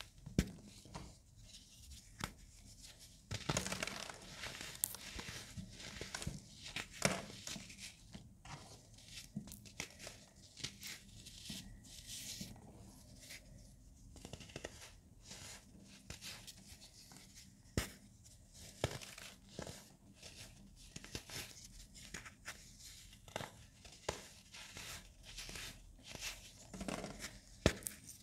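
Hands squeezing and crushing clumps of powdery baking soda: a run of irregular crisp crunching and snapping over a soft powdery hiss.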